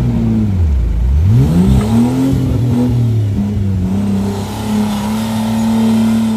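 Off-road 4x4 buggy's engine revving under load as it climbs out of a mud pit. The revs drop about a second in, rise again, then hold steady and high for the second half.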